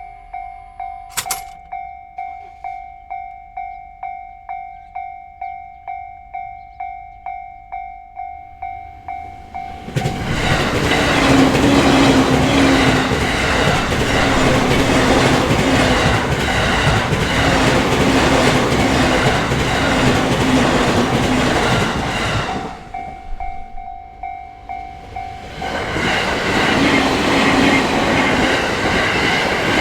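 A Japanese level crossing's electronic warning bell rings steadily about twice a second. About ten seconds in, a JR Narita Line train passes over the crossing, its wheels clacking over the rail joints and covering the bell. The bell is heard again for a few seconds before a second loud train passage begins.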